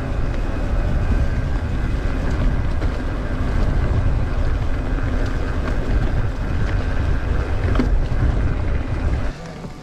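Strong wind buffeting the microphone of a moving mountain biker, a heavy low rumble. It drops away abruptly about nine seconds in.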